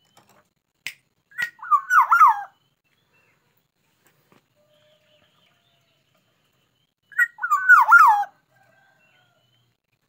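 Black-naped oriole singing two short, fluting whistled phrases about six seconds apart, each a few looping notes that slide up and down in pitch.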